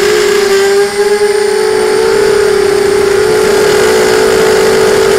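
QAV250 racing miniquad's brushless motors and propellers whining loudly in flight, picked up by the onboard camera on the frame, with air rushing over the microphone. A steady high hum that drops out briefly twice in the first second and a half and wavers slightly in pitch.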